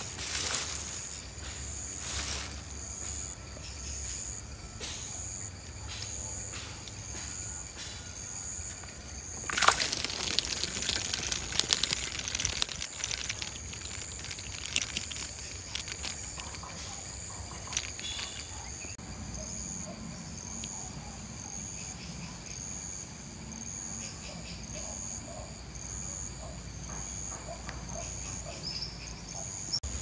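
Insect chirping: a high, even pulse repeating a little more than once a second. About ten seconds in, a few seconds of loud splashing and rustling as a hooked fish thrashes and is pulled up out of the swamp grass.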